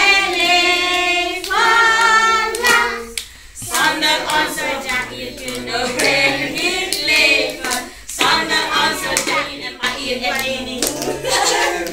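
A group of voices singing together, with hand-clapping.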